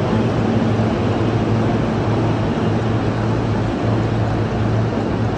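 Busy train station ambience: a steady low hum under an even wash of crowd and walking noise.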